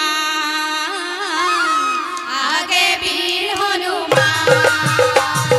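Assamese dihanam devotional music: a bamboo flute plays a wavering melody with women's voices, and about four seconds in hand drums and small cymbals come in with a quick, regular beat.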